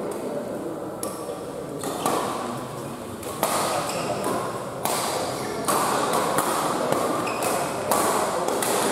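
Badminton rackets striking a shuttlecock in a doubles rally: a string of sharp hits, about one a second.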